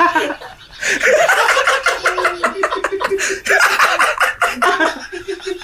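Several men laughing loudly together in repeated bursts, with a brief lull about half a second in.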